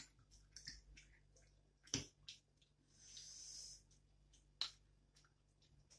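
Quiet eating sounds: a few sharp clicks and smacks, the loudest about two seconds apart, and a short soft hiss about three seconds in.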